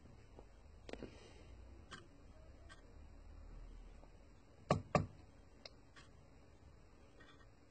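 Scattered light clicks and taps, with two sharper taps close together about five seconds in: a paintbrush being worked and tapped in a foil-lined dish of thinned oil paint.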